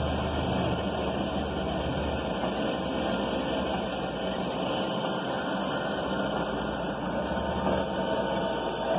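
Homemade electric kite-line winding machine running steadily, its motor and belt-driven spool whirring as kite line is wound onto a can spool. A low hum under the whir eases off after about two seconds and comes back near the end.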